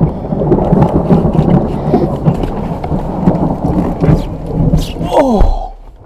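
Heavy rain and really loud thunder of a lightning storm, dense and steady. It cuts off sharply near the end as the pickup truck's door shuts.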